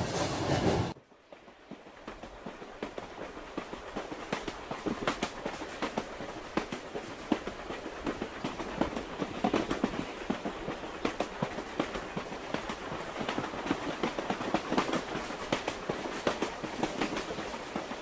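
Suburban electric train running on the track, wheels clicking and clattering over the rails under a steady rumble that builds over the first few seconds. A loud first second cuts off abruptly.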